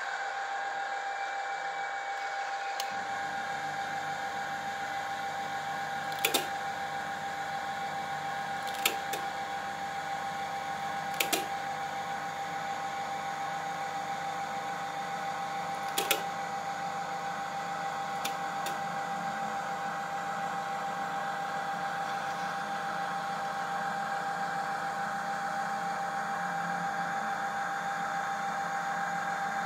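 Roco H0-scale model of a PKP ST44 diesel locomotive running slowly: a steady hum with a high steady tone, joined by a deeper hum about three seconds in. About six sharp clicks come through it at irregular intervals.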